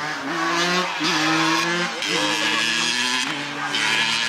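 Dirt bike engine revving hard, its pitch climbing, then holding steady, several times over as the bike is ridden along a track.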